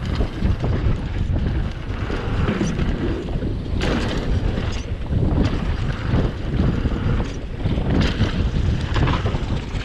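Wind buffeting a helmet- or chest-mounted action camera's microphone during a fast mountain-bike descent, with a steady low rumble from the tyres on the trail. Repeated short knocks and rattles from the bike over rough ground, the sharpest about four seconds in.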